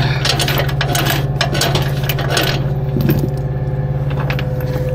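An engine idling steadily, with sharp metallic clicks and rattles of tie-down hardware through the first half while a load is being secured.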